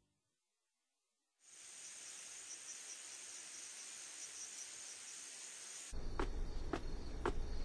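Crickets chirring in a steady high chorus, starting after about a second and a half of silence. About six seconds in, footsteps start coming down a staircase, a little under two steps a second.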